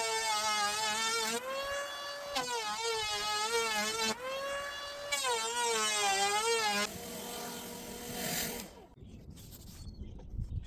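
A loud pitched tone with many overtones, in phrases where the pitch wobbles rapidly up and down and then holds steady, repeated three times and fading out near the end.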